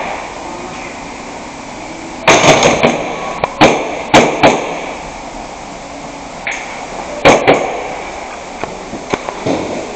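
Gas blowback airsoft gun firing in short bursts and single shots: each shot is a sharp crack with the bolt clacking. A quick string of several shots comes about two seconds in, then single shots and pairs about half a second apart.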